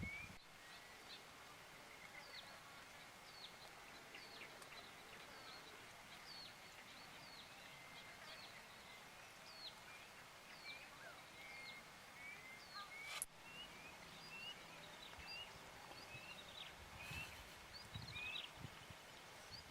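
Faint bird calls: a steady series of short, high chirps, each sliding quickly downward, about one every second, over quiet outdoor ambience with a faint steady high tone underneath. A single sharp click about thirteen seconds in.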